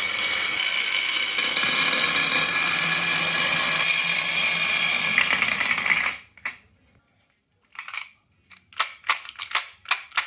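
Marbles rolling steadily along a marble-run track with a ringing rattle, which stops suddenly about six seconds in. A series of sharp clicks and clacks follows as marbles knock against the pieces and each other.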